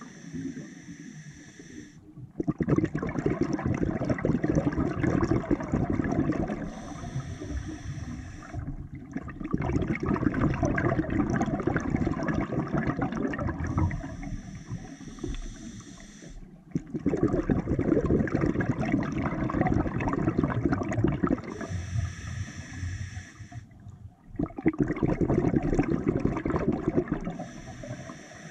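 Scuba diver's open-circuit regulator breathing underwater: a short hissing inhale, then a longer burst of gurgling exhaled bubbles, repeating in a slow cycle about four times.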